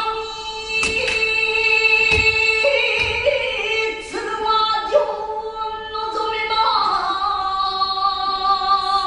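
A woman singing in long held notes that waver and step from pitch to pitch, the vocal accompaniment to a Japanese sword dance. A few soft knocks sound under the voice.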